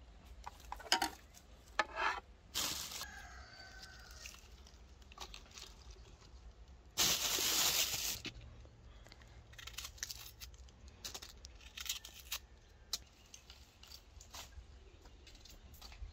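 Rustling and crinkling of fresh herbs being handled in a plastic bowl, with scattered clicks of a knife against the bowl. A louder tearing rustle lasts about a second, about seven seconds in.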